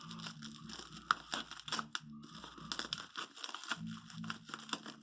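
Packaging being torn and crinkled open by hand: a run of quick crackles and rips.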